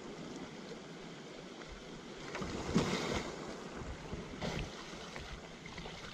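Water splashing around a kayak as the paddler capsizes it on purpose for a wet exit, with the loudest splash about three seconds in and a smaller one a second and a half later.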